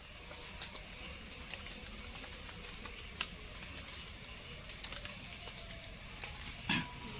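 Night-time outdoor ambience: a steady hiss of insects with scattered faint clicks and ticks, and one louder short knock near the end.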